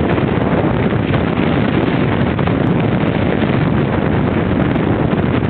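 Wind blowing across the microphone: a steady, loud rushing rumble with no breaks.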